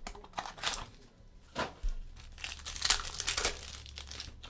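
A trading-card pack wrapper crinkling and tearing as it is opened and the cards are handled: a run of irregular crackles and rustles.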